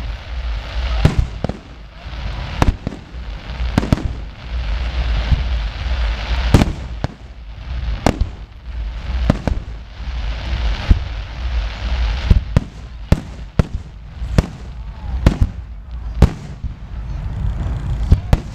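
Aerial fireworks shells bursting in quick, irregular succession, a sharp bang every half second to a second, with a steady hiss between the bangs.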